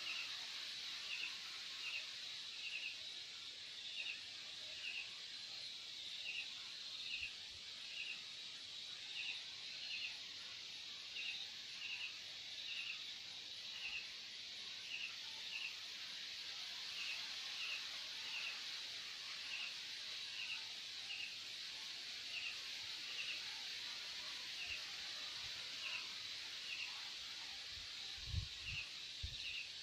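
Night insect chorus of crickets: a steady high trill, with a nearer cricket giving short chirps, often in pairs, one to two a second. A few low thumps near the end.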